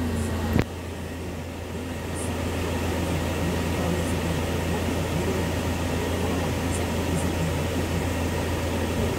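Steady low hum of an idling van, heard from inside the cabin, with a single sharp knock about half a second in.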